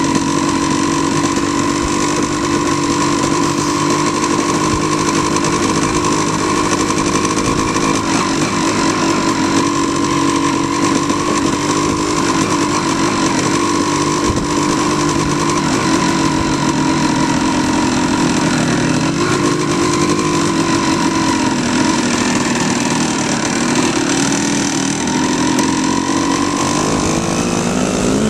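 Off-road motorcycle engine running at a steady, moderate speed while riding along, its pitch dropping near the end.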